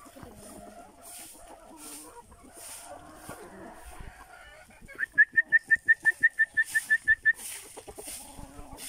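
Free-range chickens clucking softly. About five seconds in, a fast run of about fourteen loud, high, piping notes, around six a second, lasts a little over two seconds and stops.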